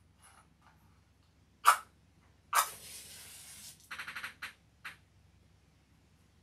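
A match struck on the box twice: a short scrape, then a second strike about a second later that catches with a hiss lasting about a second. A quick run of light clicks and a single click follow.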